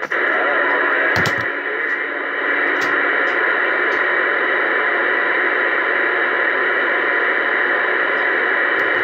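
Uniden Bearcat 980SSB CB radio on AM giving out a steady hiss of static from its speaker, with a few faint clicks in the first four seconds. The meter shows a weak incoming signal, so a distant station is keyed up and its carrier comes through buried in noise.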